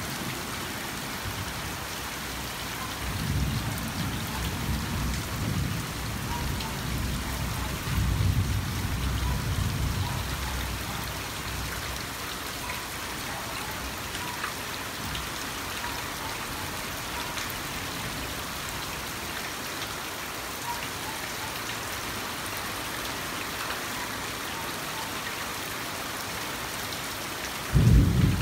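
Steady rain falling on garden foliage and lawn, a continuous even hiss. Low rumbles of thunder come in twice, a few seconds in and again around eight seconds, and a louder rumble starts suddenly just before the end.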